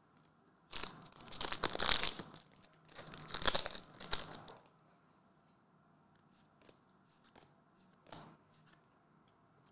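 A Weiss Schwarz foil booster pack being torn open and its wrapper crinkled, in several rough bursts over about four seconds.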